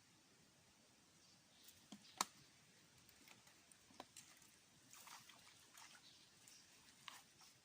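Near silence, broken by one sharp click about two seconds in and a few faint scattered ticks.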